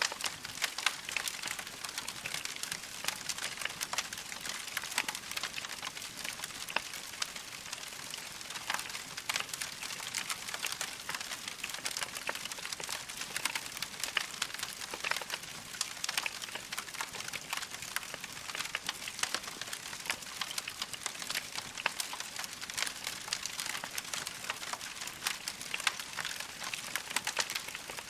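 Wood fire crackling steadily in a fireplace: a continuous hiss full of irregular small pops and snaps.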